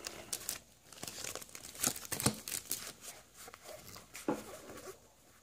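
Pokémon booster pack wrapper crinkling and tearing as it is pulled apart by hand, in short irregular bursts of crackle, the loudest about two seconds in and again just past four seconds.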